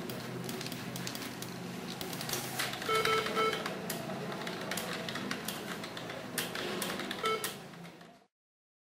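Irregular clicking of computer keys over a low steady hum, with a few short electronic beeps about three seconds in and once more near the end; the sound cuts off suddenly just before the end.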